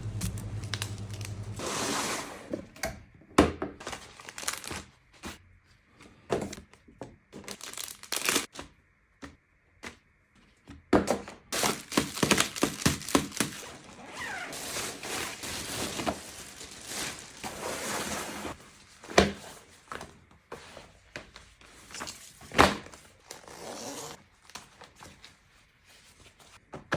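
Packaging being handled and opened: plastic and paper crinkling and rustling, with tearing, and irregular thumps and knocks as the box and contents are moved about.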